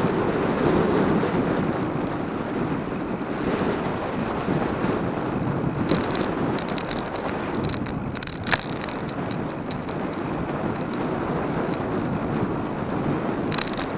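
Wind buffeting the microphone of a bicycle-mounted action camera while riding a cross bike, with bursts of rattling over bumps about halfway through and again near the end.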